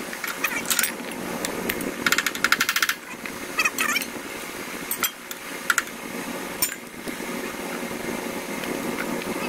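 Hand tools clicking and tapping on the Zamboni 546's blade-shaft hardware. Scattered single clicks, and about two seconds in a fast, even run of some fifteen clicks lasting just under a second, over a steady low hum.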